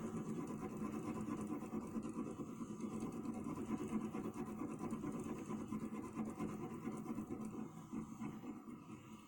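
Colored pencil scratching on sketchbook paper in quick back-and-forth shading strokes, easing off near the end.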